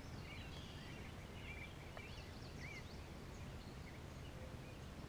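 Quiet outdoor ambience with faint, scattered bird chirps coming and going.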